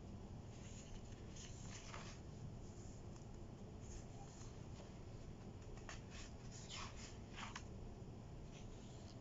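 Pages of a spiral-bound paper planner being turned by hand: a handful of short, soft paper swishes and rustles, spread unevenly, over a steady low room hum.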